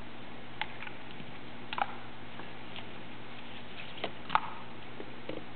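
Chunky plastic toy building blocks clicking as they are set down on a table and pressed together, a few separate clicks over a steady faint hiss.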